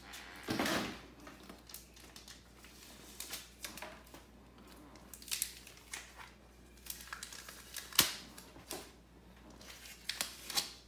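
Intermittent rustling and crinkling with scattered light clicks, and one sharp click about eight seconds in.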